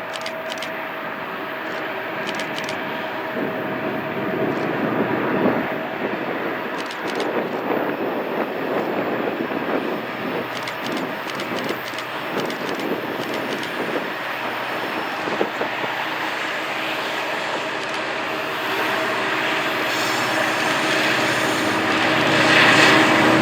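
Train rolling by: a steady rumble and rattle with scattered sharp clicks, getting louder near the end.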